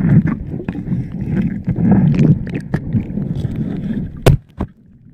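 Muffled underwater sound of a diver moving through a river: uneven low rumbling water noise with small knocks, and one sharp click about four seconds in.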